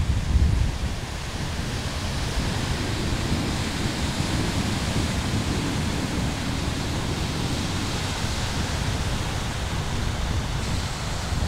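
Surf breaking on a stony beach, a steady rushing noise, with wind rumbling on the microphone.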